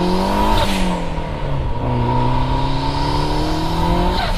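Turbocharged 4G63 inline-four of a first-generation Eagle Talon pulling hard through the gears. The engine note climbs, drops at a shift about half a second in, then climbs steadily again until another shift near the end.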